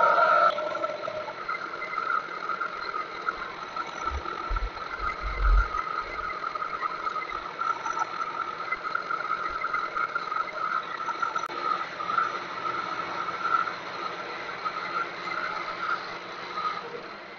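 Milling machine taking a final light cut on the flats of a steel bolt head with an end mill, a steady high-pitched cutting whine over the machine's running noise. A few low bumps come about four to six seconds in, and the sound dies away at the very end.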